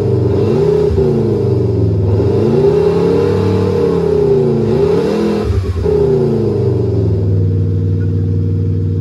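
JSR XHAUST active exhaust sound generator playing a simulated BMW E92 M3 V8 exhaust note. The revs rise to a peak a few seconds in and drop back, then the note holds a steady drone for the last three seconds.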